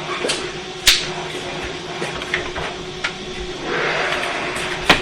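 Radio channel static hiss with a faint steady hum between fire department transmissions, with a sharp click about a second in and another click at the end as a transmitter keys up. The hiss grows a little louder about two thirds of the way through.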